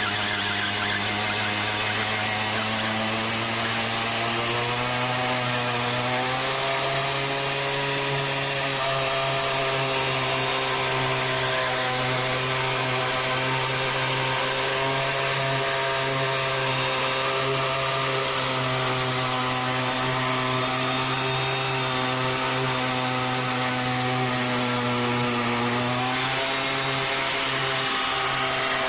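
Simson Star moped's 50cc two-stroke single-cylinder engine held at high revs for a burnout, spinning the rear tyre. The revs climb about six seconds in and hold steady, then dip briefly near the end and climb again.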